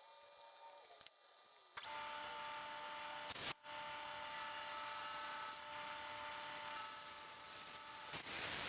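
Kearney & Trecker rotary head milling machine running with a steady whine of several tones. It comes in abruptly about two seconds in, breaks off briefly partway through, and a higher tone grows louder near the end.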